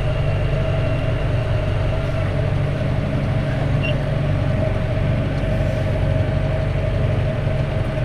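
Massey Ferguson tractor engine running steadily under load while pulling a plough, a constant drone with a steady whine above it.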